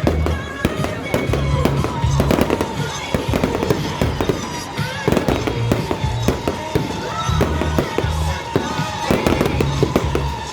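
Aerial fireworks bursting and crackling in quick succession, many sharp bangs close together, with music playing underneath.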